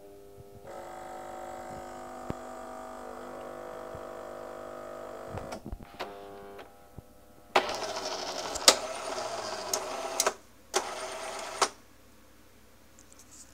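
Jura Impressa Scala coffee machine running with its covers off: a motor whirs steadily for about five seconds, then after a few clicks and a short lull, louder mechanical buzzing comes in two stretches with sharp clicks and stops near the end. The machine is faulty and gives out no coffee or water at the spout.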